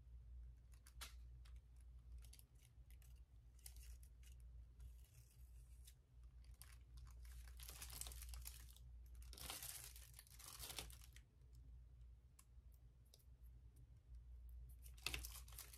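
Faint crinkling and rustling of thin paper being lifted and peeled off a gel printing plate, with small ticks as a pressed leaf is picked off the plate. Two longer rustles come in the middle, over a low steady hum.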